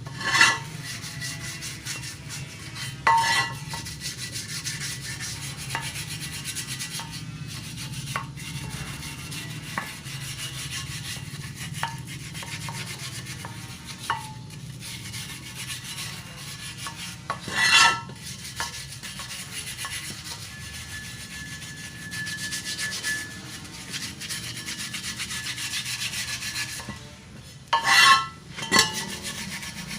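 Continuous rubbing and scraping on a motorcycle wheel rim as paint softened by remover is scrubbed off, with a few louder, sharper scrapes.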